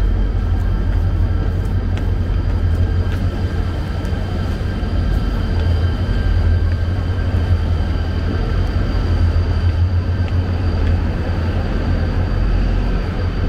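Loud, steady low rumble of a railway station hall, with several faint steady high-pitched whines above it and a few light footstep clicks on the stairs.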